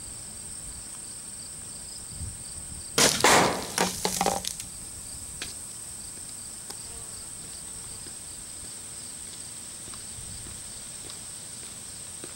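A vinegar-and-baking-soda bottle bomb going off about three seconds in: a sudden loud burst, then about a second and a half of sputtering spray as the gas and foam blow out. A steady high chorus of insects runs underneath.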